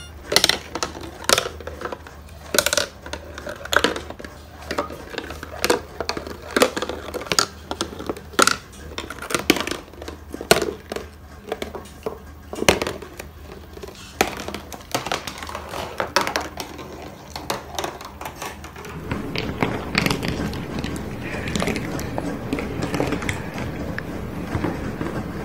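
A marble rolling down a homemade track of cardboard, cut plastic bottles and cups, clicking and knocking irregularly as it drops and bumps between sections. About three-quarters of the way through it turns into a steadier rolling rattle.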